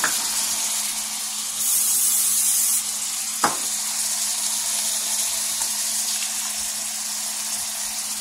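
Pork chops and sliced onions sizzling in a frying pan: a steady frying hiss that swells louder for about a second around two seconds in. A single sharp click about three and a half seconds in, over a faint steady hum.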